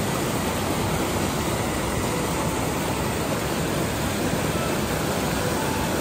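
Fast mountain stream rushing over rocks and small cascades, a steady, even rush of water.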